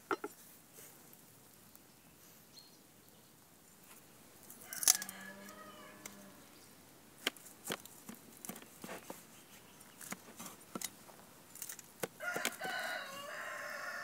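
Two long animal calls, one about five seconds in and another near the end, over scattered sharp clicks and taps.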